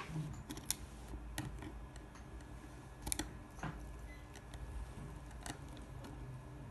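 Faint, irregular small clicks of flex cable connectors being unclipped from inside an iPhone 6 during disassembly.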